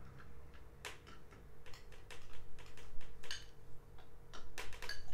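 Spoon and fork clinking and scraping against bowls and plastic ice-cube trays, a run of irregular light clicks and taps, as a banana-yogurt mixture and strawberries are spooned into the moulds.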